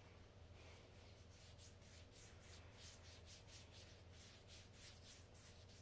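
Faint, quick rubbing strokes of a liquid-soaked cotton ball on bare skin of the upper arm, a few strokes a second, starting about a second in.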